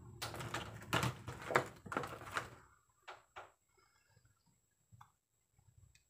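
Plastic packaging crinkling and rustling as it is handled for about two and a half seconds. Then a few small, sparse plastic clicks and taps as the action camera's parts and case are handled.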